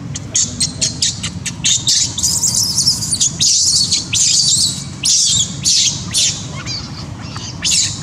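Infant macaque squealing in a rapid series of short, high-pitched cries, about three a second, busiest in the middle of the stretch.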